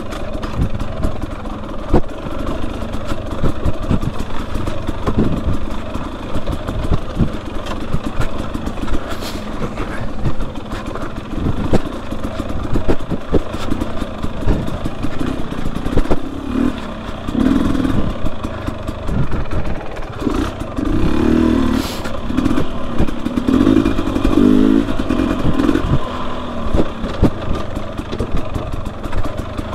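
A 2021 Husqvarna TE250i's single-cylinder two-stroke engine running under load on a trail ride, revving up and down repeatedly in the second half. Frequent knocks and clatter sound throughout.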